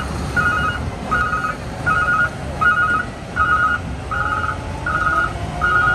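Reversing alarm on a construction truck beeping steadily, each beep a quick trill, about one every three-quarters of a second, over a low diesel engine rumble. A slowly rising whine joins about four seconds in.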